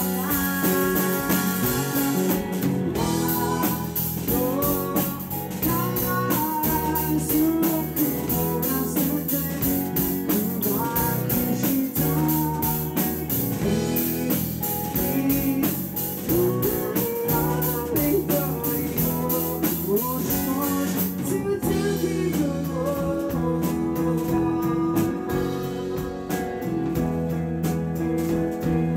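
Rock band playing live: electric guitar, electric bass and drum kit, with a male lead vocal singing over them.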